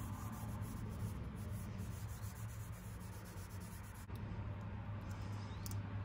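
A cleaning wipe rubbed back and forth over a plastic dashboard panel, a faint scrubbing over a steady low hum.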